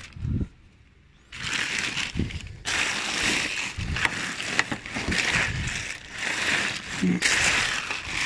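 Plastic bags rustling and crinkling in uneven surges as hands rummage through bagged rubbish in a bin, starting about a second in after a soft thump.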